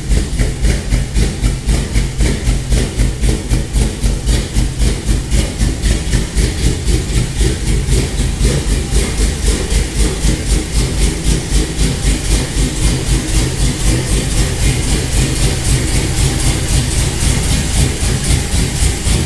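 Cammed 5.7 L HEMI V8 idling loud and rowdy, with a choppy, evenly repeating lope from its aftermarket camshaft.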